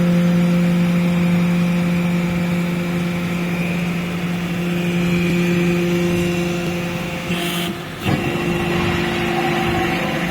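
Hydraulic scrap metal baler's power unit running with a steady, loud hum. About eight seconds in, a short hiss and a knock briefly break the hum, then it carries on.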